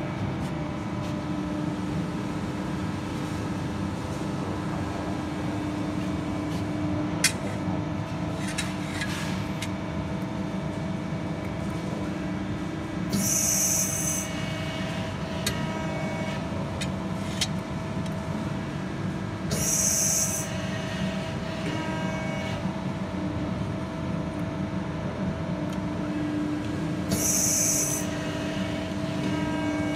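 110-ton CT8 CNC hydraulic press brake running, its hydraulic pump giving a steady hum. Three short hisses about six to seven seconds apart come as the ram strokes to bend steel strips, with a single sharp click near the start.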